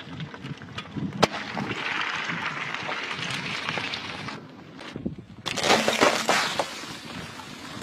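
Car tyre rolling over and crushing brittle objects. A single sharp crack comes about a second in, then a dense run of crackling and crunching starts about five and a half seconds in.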